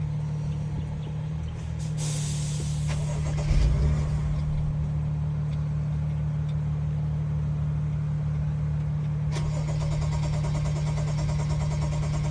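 BMW engine cranking on the starter without firing, with a hiss and a thump about three seconds in. It is a no-start with no fuel pressure: the fuel pump gets no power because its control module is corroded and full of water.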